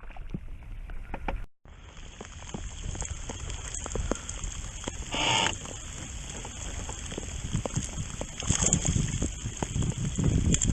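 Rain and water around a kayak: a steady hiss of rain and sloshing water, with many small ticks and knocks against the hull, cut off briefly near the start.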